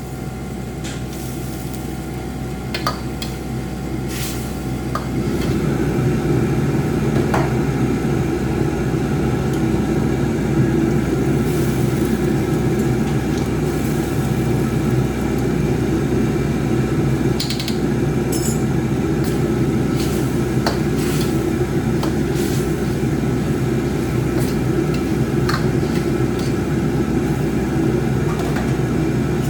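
Steady roar of wok cooking over a gas burner, with occasional clinks of a metal utensil against the wok. The roar grows louder about five seconds in.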